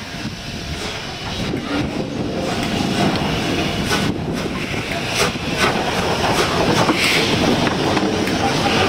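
BR Standard Class 8 Pacific steam locomotive 71000 Duke of Gloucester rolling slowly past, growing louder as it approaches, with irregular clanks from its wheels and running gear.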